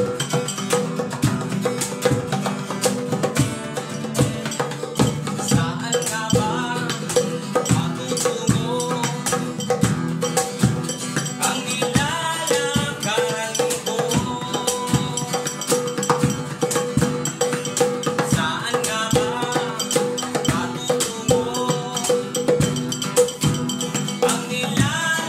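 Acoustic guitar strumming with a djembe hand drum and beatboxing, an unplugged trio playing a song to a steady hand-drum beat.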